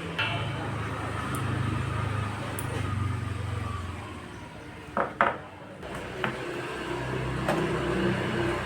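A few sharp metallic clinks and knocks of metal parts being handled, the loudest a quick pair about five seconds in, over a low steady hum.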